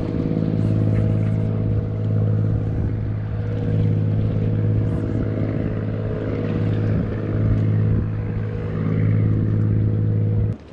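Boat engine running steadily at one even pitch, a low hum; it cuts off suddenly near the end.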